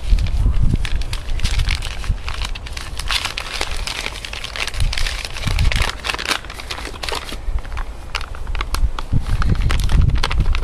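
Paper flour packet crinkling and rustling as plain flour is poured out of it, with many irregular sharp crackles over a low rumble.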